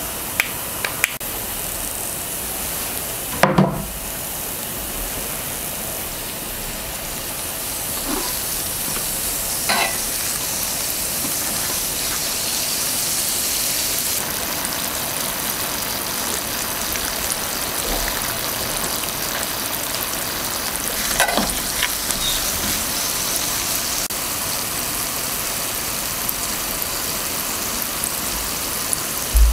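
Malasada yeast dough deep-frying in a saucepan of oil at about 160 °C: a steady sizzle with a few brief, louder pops.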